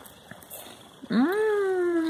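A woman's long, drawn-out vocal sound of enjoyment while eating. It starts about a second in and slides slowly down in pitch.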